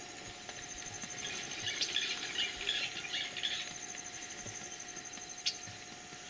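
African wild dogs squeaking and twittering at a kill while they feed: a flurry of short high-pitched squeals for a couple of seconds from about a second in. A steady high trill runs underneath.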